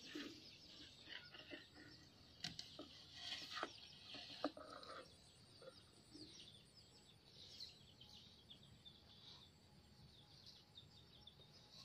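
Faint birds chirping throughout, with a few soft scrapes and knocks between about two and four and a half seconds in as a metal bowl digs into soil.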